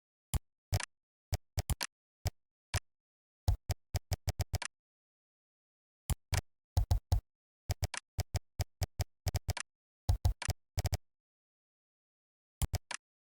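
Computer keyboard typing in irregular bursts of sharp key clicks, with short pauses between runs of keystrokes and a longer pause near the end.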